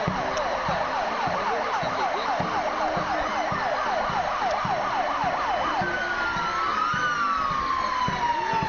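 Fire engine siren sounding a fast yelp, about four sweeps a second, then switching about six seconds in to a slow falling wail, with a second tone rising and falling over it.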